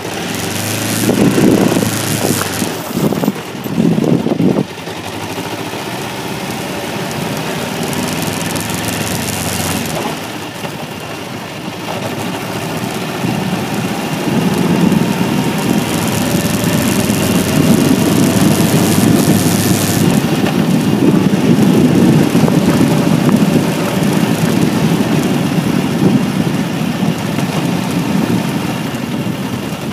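Kawasaki Ninja 500 motorcycle's parallel-twin engine being ridden, revved in two short bursts in the first few seconds, then pulling steadily with its pitch rising and falling, with wind rushing on the microphone at times.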